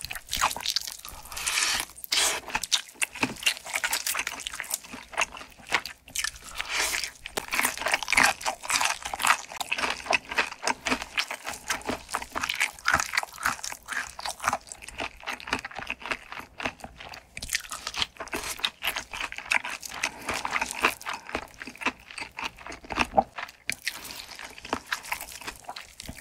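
Fried chicken drumstick with a crisp crust being bitten and chewed close to the microphone: dense, crackling crunches, bite after bite, with wet chewing in between.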